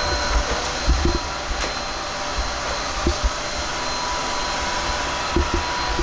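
Clien R9 robot vacuum running while it cleans: a steady suction hum with thin whining tones, and a few dull low knocks.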